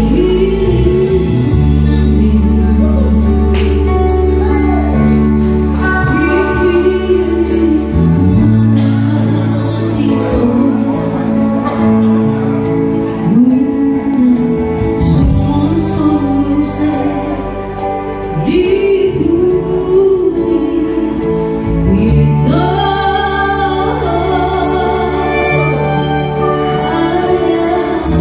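A woman singing a Batak Toba song into a microphone, her melody sliding between held notes, over an electronic keyboard accompaniment of steady sustained bass notes.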